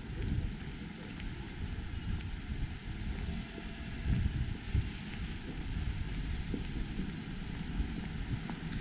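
Low, uneven rumble of road traffic in a street, with a couple of louder swells about halfway through.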